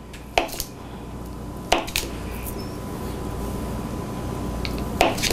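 Kitchen knife slicing through a block of butter, its blade knocking sharply against the wooden butcher-block board a few times, over a low steady hum.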